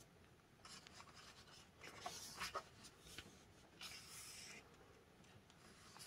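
Faint rustling of paper as a page of a paperback colouring book is turned: a few soft rubs and swishes, the strongest about two seconds in.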